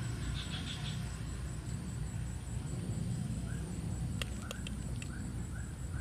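Steady low rumbling noise, with a brief flurry of high chirps near the start and a series of short chirping calls, about two a second, in the second half. A few sharp clicks come around four seconds in.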